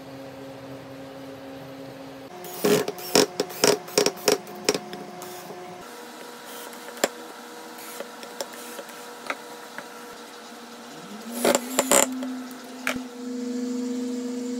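Cordless drill driving screws through a metal faceplate into a walnut log: a quick run of sharp clicks a few seconds in, a few lighter ticks, then a short rising whir with more clicks near the end, followed by a steady hum.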